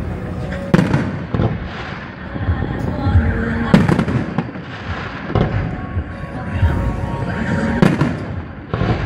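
Aerial firework shells bursting in a display: a series of loud bangs, the sharpest about a second in, near four seconds and near eight seconds, with low rumbling and crackle between them.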